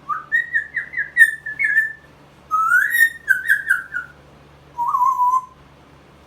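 A pet parrot whistling three warbling phrases: two longer ones, then a short, lower one about five seconds in.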